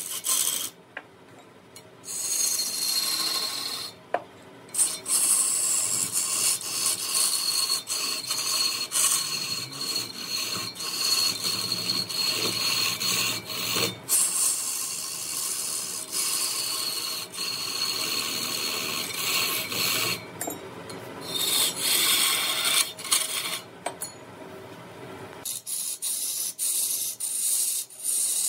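Wood being rasped by hand: repeated scraping strokes making a high hiss, with a few short pauses.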